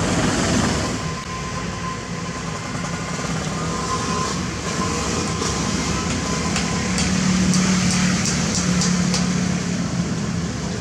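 Kobelco SK200 hydraulic excavator working: its diesel engine and hydraulics give a steady drone with a thin whine, the engine note pulling harder in the second half as the machine digs. A quick run of light metallic ticks comes around the middle.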